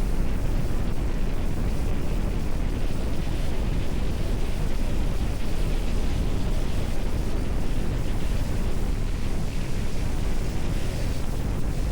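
Wind buffeting the microphone: a loud, steady low rumble of wind noise with no breaks.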